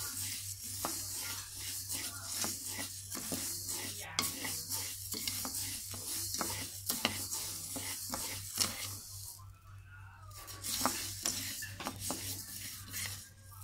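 Wooden paddle stirring and scraping dry glutinous rice grains around a black wok as they toast for khao khua. The sound is a dense rustling hiss of grains with frequent sharp clicks of the paddle on the pan. The stirring pauses for about a second roughly two-thirds of the way in, then starts again.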